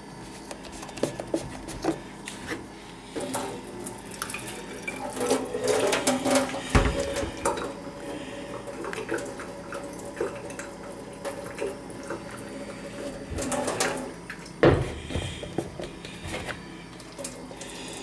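Water splashing into a stainless steel sink as a plastic thermal coffee carafe is tipped and emptied, with clicks of its screw lid and several sharp knocks of the plastic carafe against the sink.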